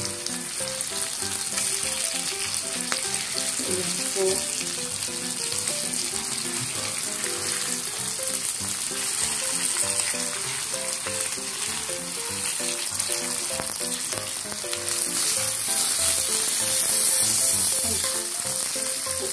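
Milkfish pieces sizzling in a wok of sautéed miso, onion, garlic and ginger over a lowered flame, browning before water goes in, with a wooden spatula turning them now and then. The sizzle grows louder near the end.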